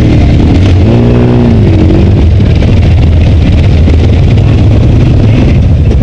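Side-by-side UTV and ATV engines running at low revs, a loud, steady low drone.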